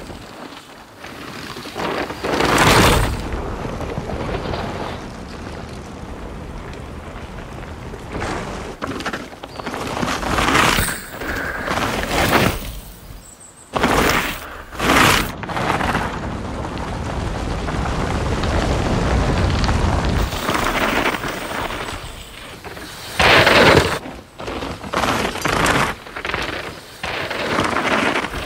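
Mountain bike ridden fast on a dirt trail: Kenda Hellkat Pro tyres rushing and skidding through loose dirt, with loud bursts of noise as the bike tears past and drifts through the turns, and a steadier rolling rush in between.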